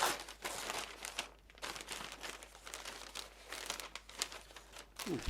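Newspaper and tissue-paper packing crumpling and rustling in irregular bursts as a potted plant is unwrapped by hand.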